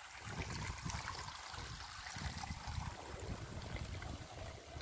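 Wind buffeting the microphone in uneven low gusts over a steady soft outdoor hiss, fairly quiet.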